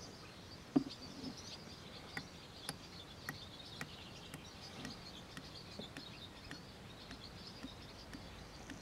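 Engine oil poured from a plastic jug into an engine's filler neck, the jug glugging faintly with small clicks about twice a second, after a single knock about a second in. Birds chirp faintly in the background.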